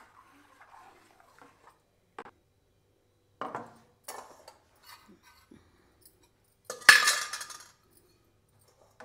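Metal kitchenware: a steel spoon scraping as it stirs mango pulp and syrup in an aluminium bowl, then several sharp clanks of steel pots and utensils being handled, the loudest about seven seconds in with a brief ring.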